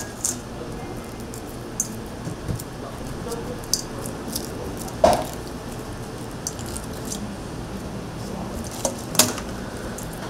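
Hard-boiled eggs being cracked and peeled by gloved hands over a stainless steel bowl: scattered light shell crackles and taps, with two louder knocks against the metal bowl, one about halfway through and one near the end, over a steady kitchen background hum.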